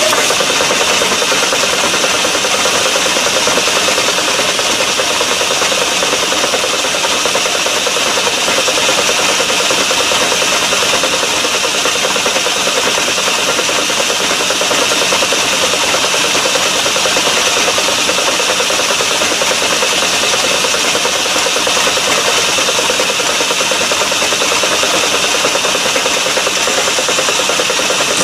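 Metal lathe running steadily with its four-jaw chuck spinning, as a small boring bar is fed into a drilled hole to square out and flatten its tapered bottom.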